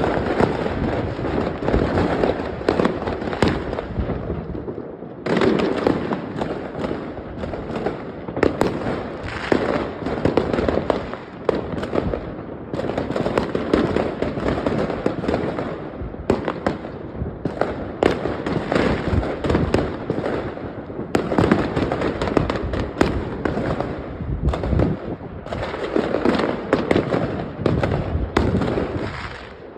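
Fireworks display: a dense, continuous run of bangs and crackles from exploding aerial shells, with a few brief lulls.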